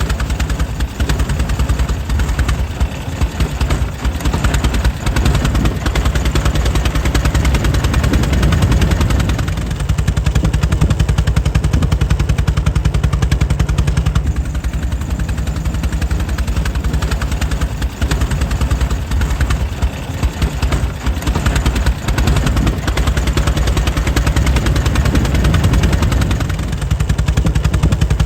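Air-cooled 1904 Mitchell engine running steadily, its exhaust firing in a rapid, even string of sharp beats.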